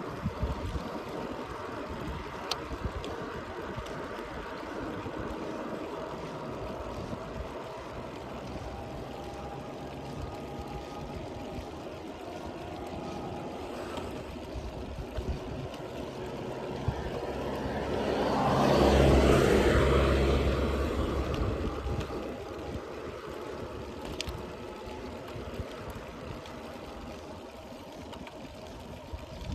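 Steady road-riding noise with a low engine hum and wind. About two-thirds of the way through, another vehicle passes close by, its sound rising and then fading over a few seconds.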